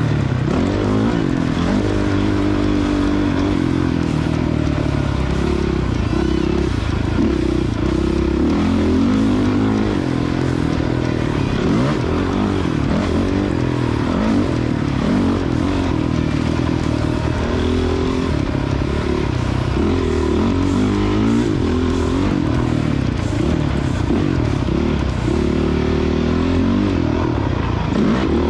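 Honda CRF450X dirt bike's single-cylinder four-stroke engine riding a motocross track, its pitch rising and falling over and over as the throttle is opened and closed.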